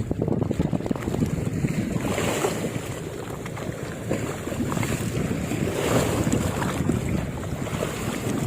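Wind buffeting the microphone over sea waves washing: a steady, low rushing noise with no distinct events.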